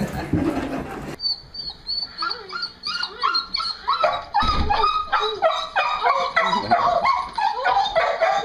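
Dog whining and yipping in a quick run of short, high-pitched cries, excitedly greeting its returning owner.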